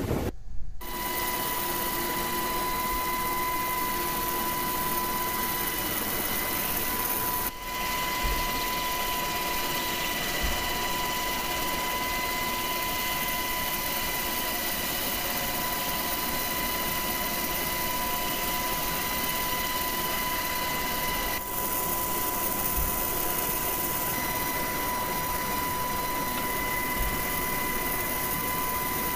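Helicopter turbine engines and rotor running steadily, with a constant high-pitched whine over a steady rush of noise, briefly dipping twice.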